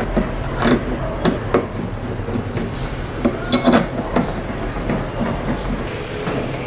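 Screwdriver and bolts clicking and clinking against a homemade steel bracket of angle bar and flat bar as the bolts are driven in: irregular sharp metallic clicks, with a quick cluster of them about halfway through.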